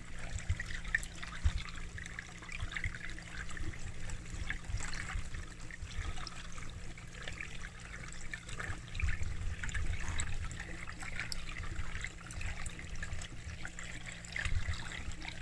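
Pond water trickling and splashing steadily, with a low steady hum underneath and a few brief low rumbles.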